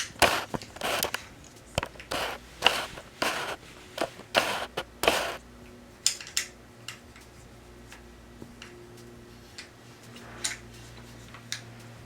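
Metal parts of an AR-15-pattern rifle being handled and worked: a quick run of about a dozen short scraping, clattering strokes over the first six seconds, then a few faint ticks.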